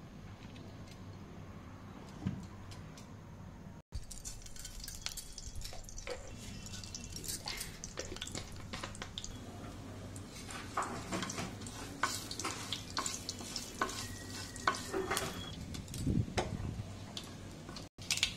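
Whole spices, cumin seeds and a dried red chilli, sizzling and crackling in hot oil in a kadai, with a spatula stirring and scraping against the pan. The first few seconds are a quieter, steady sound; the crackling starts after a brief dropout about four seconds in, and the sound cuts out again for an instant near the end.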